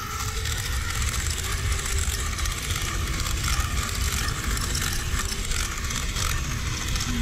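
Small electric blower pushing air through a long nozzle onto burning charcoal under a grill: a steady rush of air with a low rumble and a faint motor hum, and fine crackling from the fanned coals.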